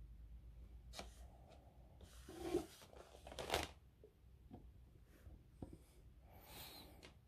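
Hands handling plastic disc cases and packaging: a click, then two short rustling scrapes, the loudest, a few seconds in, a few light ticks, and a softer rustle near the end.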